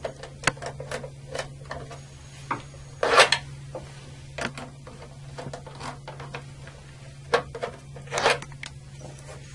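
Screwdriver and hands working the front-cover screws of an Eaton Series NRX air circuit breaker. Scattered light clicks and taps, with two longer scrapes about three and eight seconds in, over a steady low hum.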